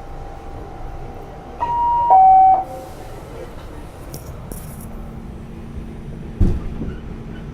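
R46 subway car door chime sounding two tones, a higher one then a louder lower one, about two seconds in. A brief hiss follows a couple of seconds later, and a single thump comes near the end, over the car's steady background noise.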